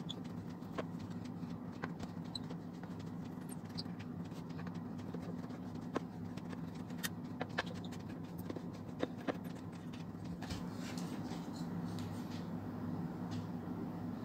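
Hand screwdriver turning out the screws that hold a subwoofer driver in its wooden front panel: scattered small clicks and scrapes over a steady low hum.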